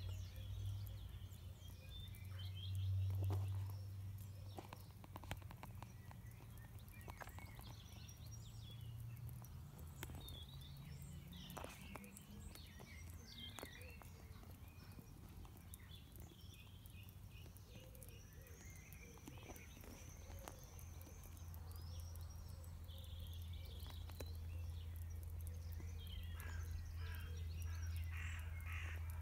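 Faint outdoor ambience: birds chirping and calling intermittently, busiest near the end, over a low steady hum, with a few light clicks.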